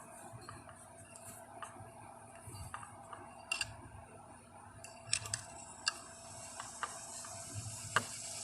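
Faint, scattered metallic clicks and scraping as a 1/4-20 tap, turned with needle-nose pliers, is started into the threaded mount hole, with a few sharper clicks along the way.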